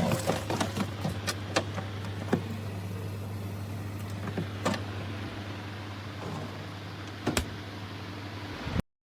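Steady low hum with scattered clicks and knocks over it; it cuts off abruptly near the end.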